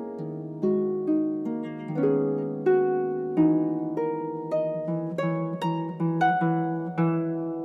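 Solo harp playing a slow passage of single plucked notes, a new note about every half second, each ringing on and fading under the next.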